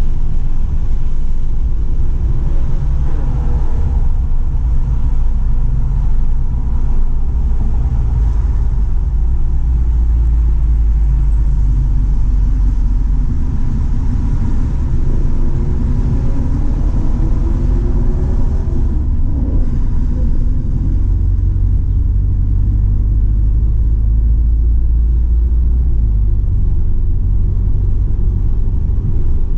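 Inside the cabin of a 2017 Volkswagen GTI with a Stage 2 tune, lapping a race track: a heavy low rumble of engine and road noise, with the pitch gliding up and down a few times around the middle.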